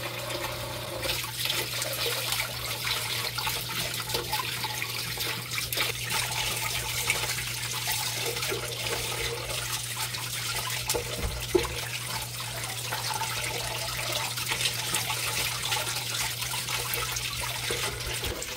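Water running steadily from a kitchen tap while pieces of hilsa fish are washed by hand, with a few small knocks, the loudest about halfway through. A steady low hum runs underneath and stops just before the end.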